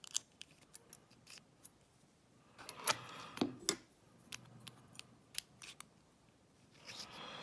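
Small metal clicks, taps and clinks from handling a picked Abus Buffo euro-profile cylinder lock and its tools while taking it apart. They come irregularly, with a busier run of louder clicks a few seconds in.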